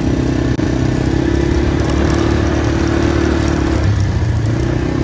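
Small quad ATV engine running steadily at part throttle, easing off briefly about four seconds in and then picking up again.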